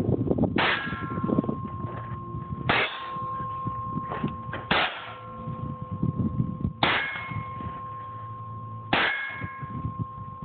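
Semi-automatic firearm fired at a steady pace, about six shots roughly two seconds apart, with a metallic ring that lingers after each shot.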